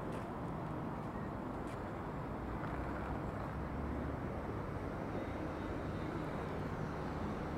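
Steady low rumble of distant road traffic, an even city hum with no single vehicle standing out.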